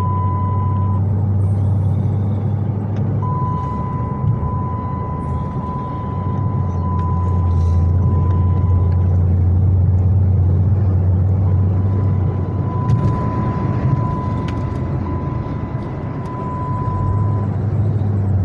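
Low, steady engine and road rumble of a moving car heard from inside the cabin, swelling in the middle. A thin steady high tone runs over it and drops out for a couple of seconds near the start.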